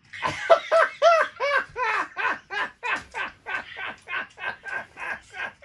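A man laughing hard: a long unbroken run of loud 'ha' bursts, about three or four a second, high-pitched at first and settling lower after a couple of seconds.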